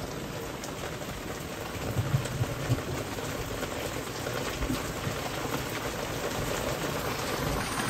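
Torrential rain falling steadily, a dense even hiss, with a brief low rumble about two seconds in.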